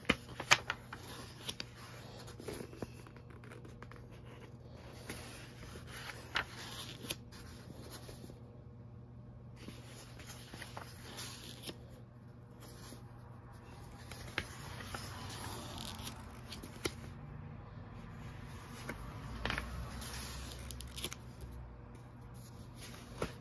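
Paper pages of a large paperback coloring book being turned and handled: soft rustling and sliding of paper, with scattered light ticks.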